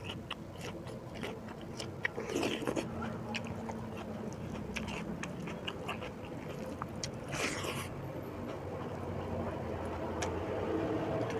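A person chewing and eating rice with beef curry, with many short wet mouth clicks and smacks. Two brief, louder noisy bursts come about two and a half and seven and a half seconds in.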